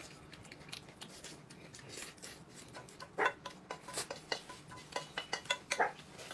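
Tableware clinking at a meal: scattered light clicks and clinks of utensils against bowls and plates, louder and more frequent from about three seconds in.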